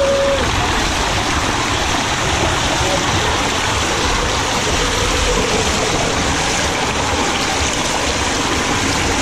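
Water rushing down an enclosed tube water slide as a rider slides through it feet-first: a loud, steady rushing wash of flowing water.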